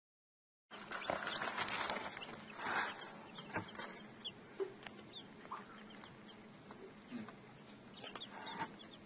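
Young chicks peeping in short, scattered high chirps, starting about a second in, over rustling and knocks from hands handling them close to the microphone.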